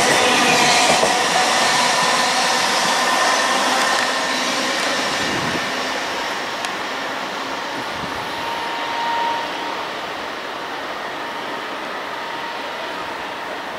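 GWR Intercity Express Train running through the station, the rumble and rush of the train steadily fading. There is a short high tone about nine seconds in.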